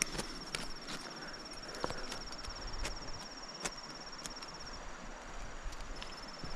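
An insect trilling steadily at a high pitch with a fast, even pulse, breaking off for about a second near the end. A few sharp clicks come through at intervals.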